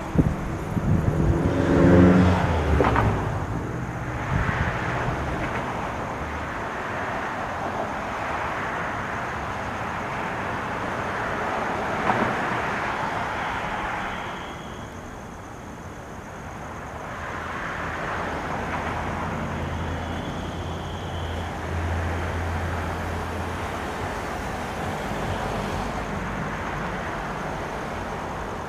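Road traffic in a suburban neighbourhood: cars passing, their noise swelling and fading several times, with a quieter dip about halfway through.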